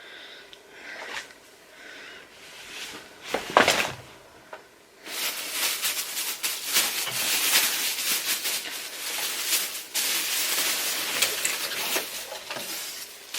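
A single click, then from about five seconds in, continuous crackly rustling as a rucksack of doll clothes is handled and rummaged through.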